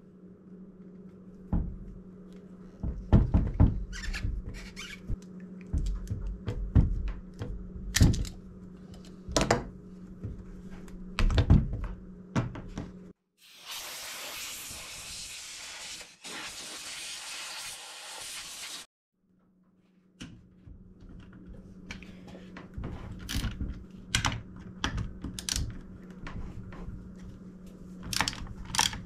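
Metal parts and hand tools clicking and knocking against the housing of a vintage Craftsman chainsaw on a wooden bench as it is taken apart. In the middle, a loud compressed-air hiss blows for about five seconds, broken once.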